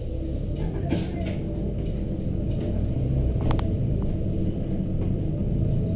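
Volvo B7RLE single-deck bus's six-cylinder diesel engine and drivetrain pulling away from a stop, the low rumble building steadily as the bus gathers speed. A brief clicking sounds about three and a half seconds in.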